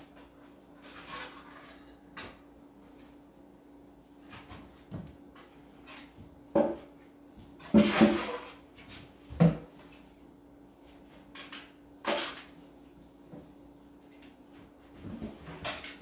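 Handling noise from working a thick climbing rope and binding wire on a plywood box: scattered rustles and knocks, with the sharpest cluster of knocks about seven to nine seconds in and another about twelve seconds in. A steady low hum runs underneath.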